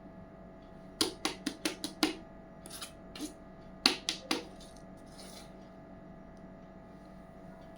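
Small hard miniature toy kitchen pieces clicking and tapping together as they are handled: a quick run of about six sharp clicks, a few softer taps, then three more clicks, over a faint steady hum.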